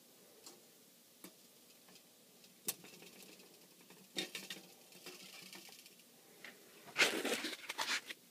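Faint clicks and light clinks of a wire mesh rack and tin foil knocking against a glass beaker as they are lowered in, then a louder spell of rustling handling noise near the end as the camera is moved.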